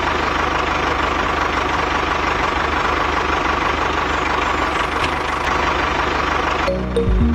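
Tractor engine idling steadily with a low throb. It cuts off abruptly near the end, where music comes back in.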